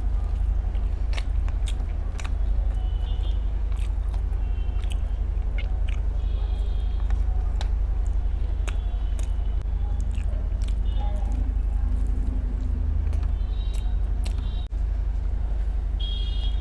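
Close-miked eating of chicken biryani and fried chicken lollipop: chewing and biting, with many short, sharp crunchy clicks scattered through it over a steady low hum.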